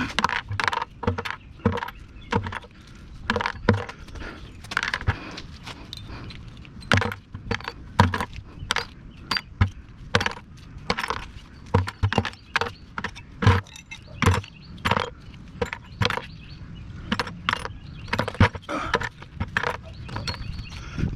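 Pieces of scrap metal from a window air conditioner being handled, clinking and clanking irregularly, about two or three sharp metal hits a second, some with a dull thud beneath.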